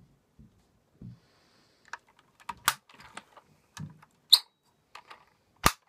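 Handling noise: irregular small clicks and dull knocks as a diecast model car is turned and moved in the hands right by the microphone, with a few sharper clicks in the second half.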